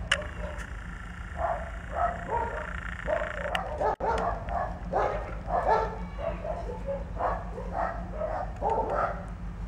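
Hens clucking as they forage: short, soft calls from several birds overlapping a few times a second, over a steady low rumble.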